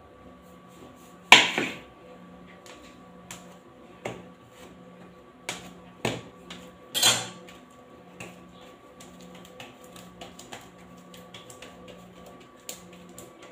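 A kitchen knife cutting a log of dough into portions, its blade knocking sharply on the countertop about a second in and again about seven seconds in, with lighter taps and thuds as the dough pieces are handled, over a faint steady hum.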